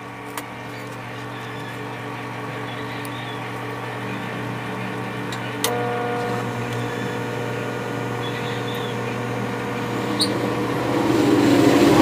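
Microwave oven running with its outer cover off, heating a mug of water: a steady hum, with a single click about six seconds in after which a higher tone joins the hum. It is running normally without blowing its fuse, now that its failed high-voltage capacitor has been replaced.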